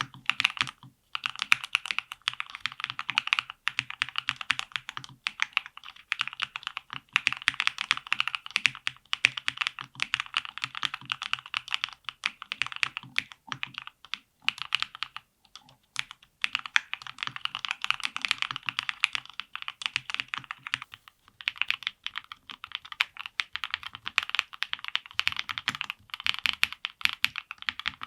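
Fast typing on a Dry Studio Black Diamond75 mechanical keyboard with linear switches (DR Rapid ICE and lubed Tecsee X SW Flow Black), FR4 plate and full foam. It runs as a dense run of key clacks, broken by a few short pauses.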